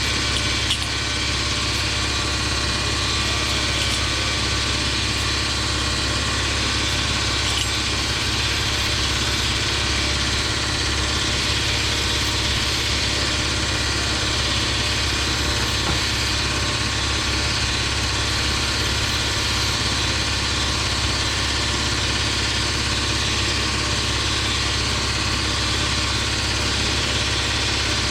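A steady, unchanging machine drone like an engine or motor running at an even speed, with a strong low hum.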